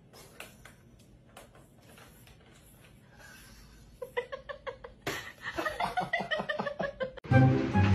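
A person laughing in quick, repeated bursts from about four seconds in, after a stretch of faint clicks and knocks from the cats at a plastic ball-track toy. Music comes in near the end.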